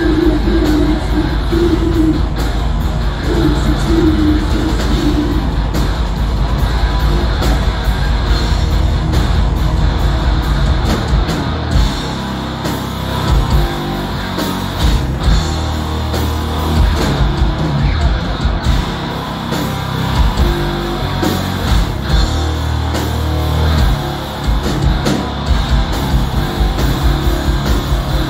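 Death metal band playing live: heavily distorted guitars and bass over fast drums, with a shift in the riff and drumming about twelve seconds in.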